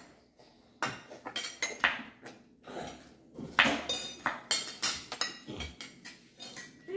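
Forks and spoons clinking irregularly against ceramic plates and bowls, some strikes ringing briefly, mixed with knocks of a knife slicing on a wooden cutting board.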